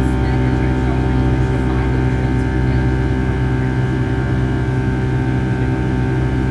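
Steady cabin noise inside a Boeing 757-300 with its jet engines running: a constant low drone carrying several steady tones.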